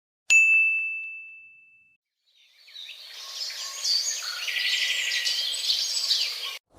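A single bright ding, struck once and ringing out over about a second and a half. From about two and a half seconds in, a chorus of many birds chirping over a light hiss, which cuts off abruptly near the end.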